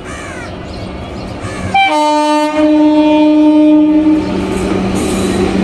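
Indian Railways WAG-7 electric locomotive approaching, its rumble building, as it sounds its horn: a brief high note a little under two seconds in, then a long lower note lasting about two seconds. The high note starts again near the end.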